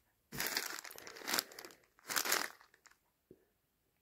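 Clear plastic bags of plastic miniatures crinkling as a hand rummages in a cardboard box: one longer stretch of rustling, then a shorter one about two seconds in. A faint click follows, then it goes quiet.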